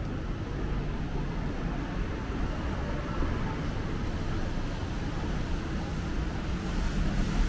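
City street traffic: a steady low rumble of engines, growing louder near the end with a rising hiss as a vehicle draws close.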